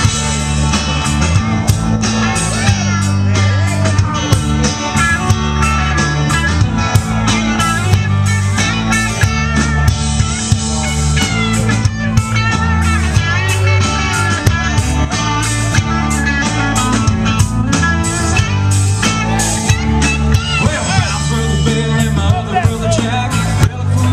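Upbeat country song playing with a steady drum beat and a driving bass line.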